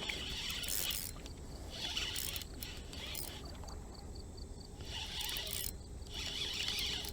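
Insects buzzing, swelling and fading in waves, with a short run of quick even pulses about halfway through.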